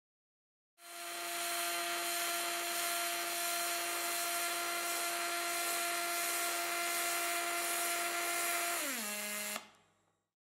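Pulsed MIG welding arc on aluminium, from an EWM Titan XQ puls welder: a steady crackling hiss with a constant buzzing hum. Near the end the buzz drops in pitch, and then the arc cuts off.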